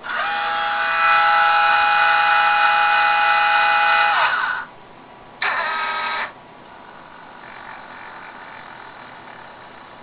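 Meade LXD-75 mount's drive motors whining as they slew on the command sent from the phone, running free because the clutches are open. The whine rises in pitch as the motors spin up, holds steady for about four seconds, and winds down. A second, shorter whine falling in pitch follows about a second later, then a faint whine near the end.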